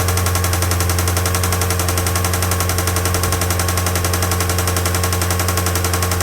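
Acura TSX K24A inline-four engine running steadily with a rapid, even knocking from its bottom end: rod knock in a defective engine.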